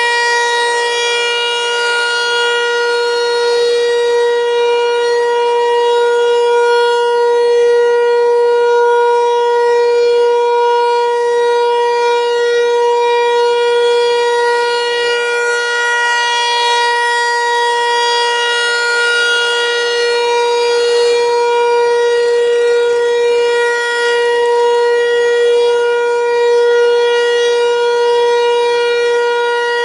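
ASC (American Signal) T-128 outdoor warning siren sounding its monthly test, holding one steady tone without rising or falling in pitch, swelling and fading slightly in loudness.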